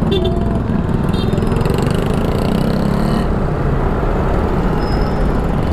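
Yamaha NMAX 155 scooter's single-cylinder engine and the surrounding motorcycle traffic as it pulls away from a stoplight, under a steady low rush of wind on the helmet camera.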